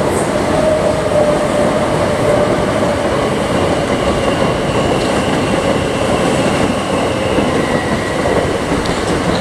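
Gatwick Express Class 387 Electrostar electric multiple unit running past on the track below: steady wheel-on-rail noise with a motor whine that slowly falls in pitch.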